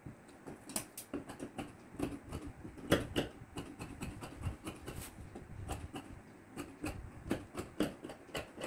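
Sheets of non-woven fusible interfacing rustling and crinkling as they are handled, folded and smoothed by hand over fabric on a table, with scattered small scratches and taps.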